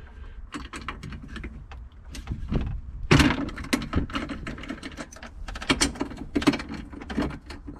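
Socket ratchet clicking in irregular runs as a nut is loosened, with a louder metallic clunk about three seconds in.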